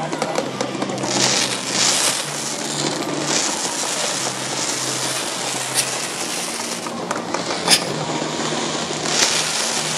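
Fireworks going off: crackling bursts with sharp bangs about six and eight seconds in, over a steady haze of noise.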